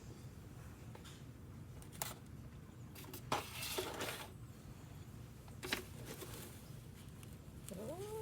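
A few short, scattered knocks and rustles over a low steady background hum.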